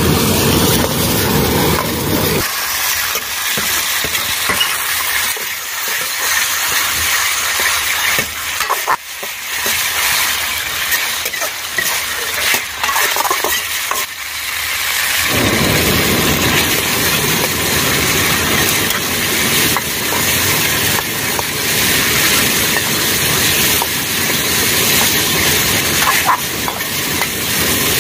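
Chicken 65 pieces sizzling in oil in a steel wok while a steel ladle stirs and scrapes against the pan, with many short scraping clicks over a steady hiss. A low rumble underneath stops a couple of seconds in and returns a little past halfway.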